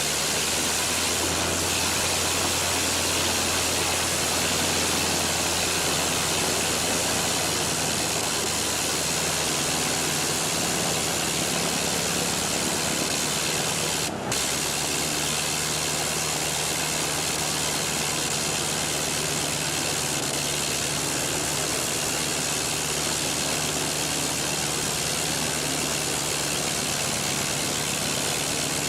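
Biplane engine and propeller running steadily, a low engine note under a wide hiss. About halfway through there is a brief dropout, after which the engine note sits higher.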